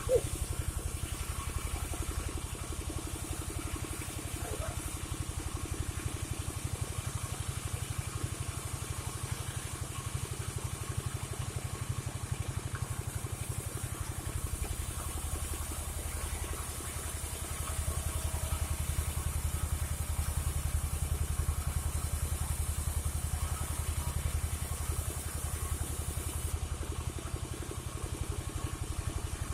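Engine of a portable band sawmill (gergaji slendang) running steadily, a little louder from about halfway through.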